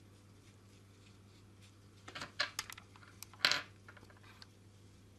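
Faint handling noise: a few light clicks and rattles from the small plastic-and-metal rotor head and flybar assembly of an RC helicopter being turned in the hands. They come in a short cluster about two seconds in, with the loudest click a little after three seconds, over a quiet low hum.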